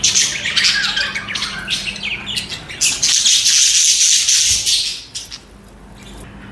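Budgerigars chattering and chirping in rapid high warbles, turning into a harsher, noisier squawking stretch about three seconds in, then dropping off to a quieter background about five seconds in.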